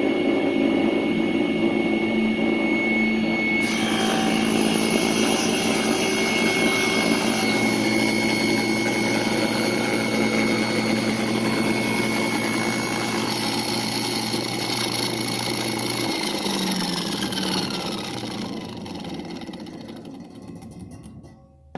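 Electric woodworking machine running steadily, its sound turning brighter about four seconds in. About sixteen seconds in it is switched off and winds down, its pitch falling as it coasts to a stop near the end.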